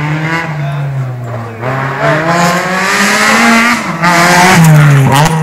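Rally car engine revving hard through the gears as it comes through the corner, with tyres scrabbling on the loose surface as it slides. It passes close near the end, and its pitch drops as it goes by.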